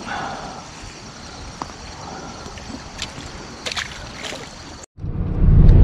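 Canal water lapping and sloshing against the bank, with a few light clicks and a small splash near the end as a released tautog hits the water. After a sudden cut, a loud low rumble of a car's engine and road noise heard inside the cabin takes over.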